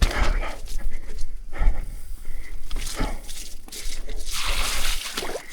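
Mountain bike rattling and knocking as it rides over wet roots and rocks on a technical descent: irregular clunks and thumps from the frame, drivetrain and tyres.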